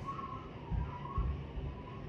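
Hummingbird hovering right by the microphone: a wavering hum from its wings with irregular low buffeting thumps.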